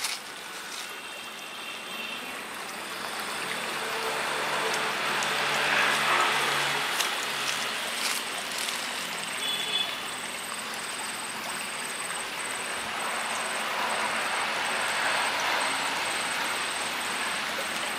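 Forest ambience: a steady rushing noise that swells twice, about a third of the way in and again near the end, with a few faint clicks in the middle.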